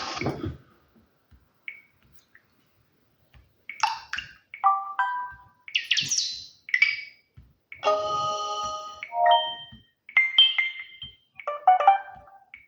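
Samsung Galaxy Mini 2 GT-S6500D's speaker playing a run of short preset notification tones one after another: brief electronic chimes and jingles, each about a second or less, with short pauses between them.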